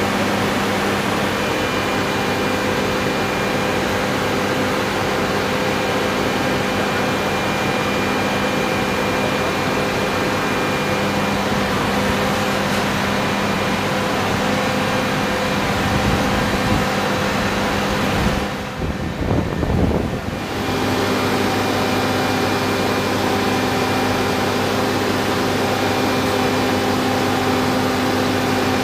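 Steady machinery drone of fans with a constant low hum running underneath, dipping briefly about two-thirds of the way through.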